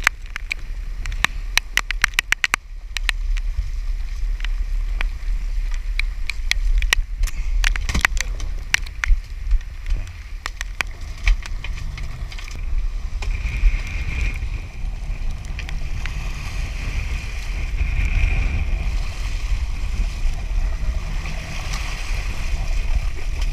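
Wind buffeting the microphone and water rushing alongside a boat in rough seas, a steady low rumble. Rapid runs of clicks from a conventional fishing reel come at the start and again around the middle as a mahi-mahi is reeled in.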